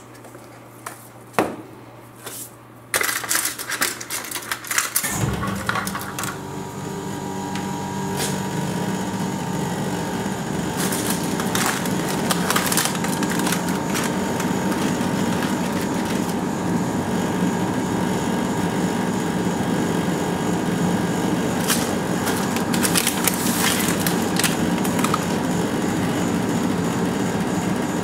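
Plastic cookie packaging crinkling and rustling as a pack of lemon creme Oreo cookies is opened and the cookie tray pulled out, in a loud burst about three seconds in and again in shorter bursts later. About five seconds in, a steady machine hum starts abruptly and runs on beneath it, the rolled-ice-cream cold plate's refrigeration unit running.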